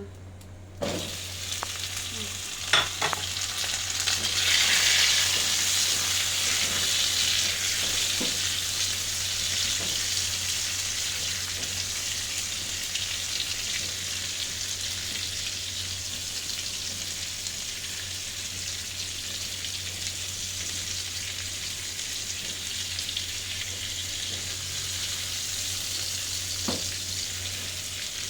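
Chopped tomatoes sizzling in hot cooking oil in a frying pan: the sizzle starts suddenly about a second in as they go into the oil, swells for a few seconds, then settles into a steady frying hiss. A few sharp knocks sound over it.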